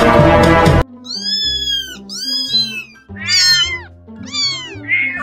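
Kitten meowing, a run of about four to five short, high-pitched mews, over soft background music. Loud music cuts off just before the meows begin, less than a second in.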